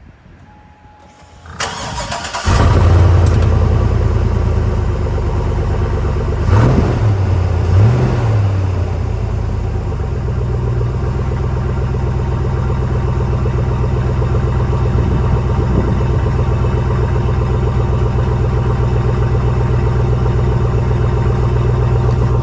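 2007 Hummer H2's 6.0-litre V8 with the stock single exhaust, recorded close to the tailpipe: the starter cranks briefly, the engine catches and runs loudly, its revs rise and fall twice about six and eight seconds in, then it settles into a steady idle.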